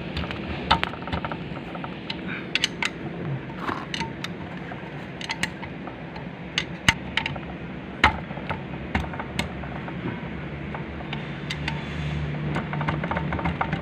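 Irregular sharp clicks and knocks of tools and metal transmission parts being handled during a manual transmission teardown, over a steady low hum.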